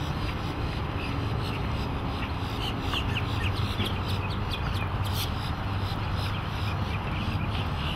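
Mercury 125 hp outboard driving the boat along, a steady low engine rumble under a wash of water and wind noise. A run of short high chirps sounds around the middle.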